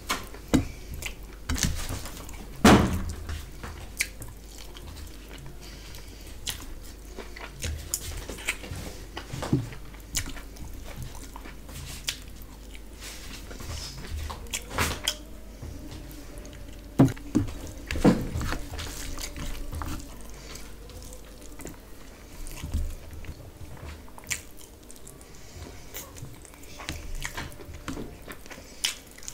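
Close-miked eating sounds of a person eating biryani by hand: wet chewing and mouth smacks, with fingers squishing and mixing rice and gravy on a steel plate. Irregular sharp smacks and clicks, the loudest a little under 3 s in and again around 17–18 s.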